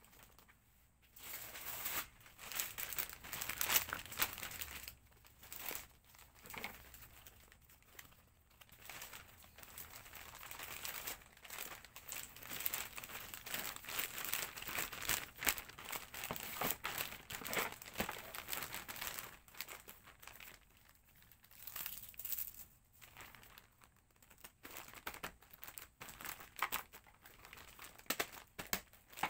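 Packaging material crinkling as it is handled, in stretches with short pauses between them.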